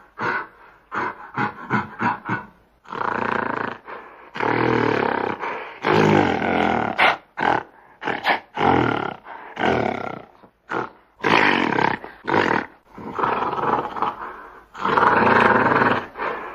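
Gorilla vocalising: a quick run of short calls, about four a second, for the first few seconds, then a series of longer calls of about a second each with short breaks between.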